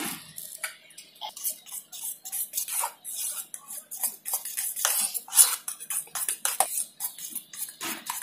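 A metal spoon stirring thick pancake batter in a stainless steel bowl, making rapid, irregular scrapes and clinks against the bowl's side.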